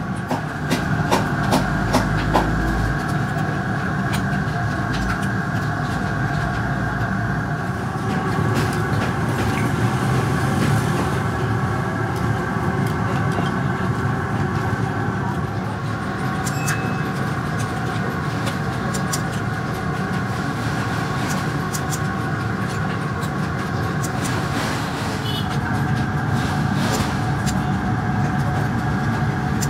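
A steady mechanical drone with a constant multi-tone hum and low rumble, with many light metallic clicks and clinks of cast lead-alloy battery grids being handled and stacked.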